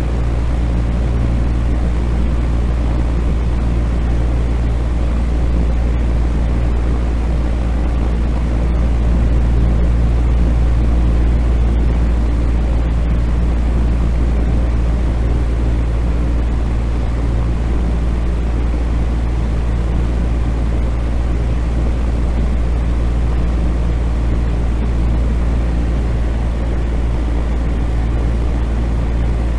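Electric fan running steadily: an even rush of moving air over a constant low motor hum, with no change in speed.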